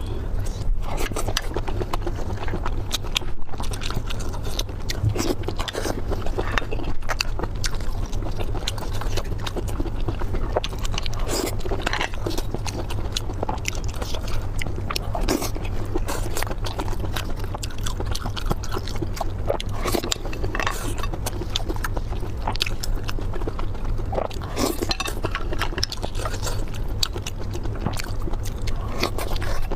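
Close-miked chewing and biting of food, with many short crisp clicks and smacks throughout over a steady low hum.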